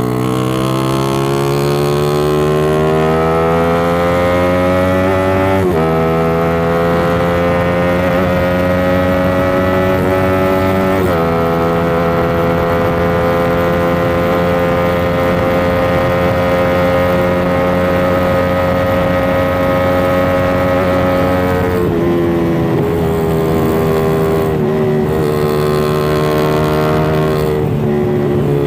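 Motorcycle engine being ridden through the gears. The pitch climbs, drops at a gear change about six seconds in and again about eleven seconds in, then holds nearly steady before easing off about 22 seconds in.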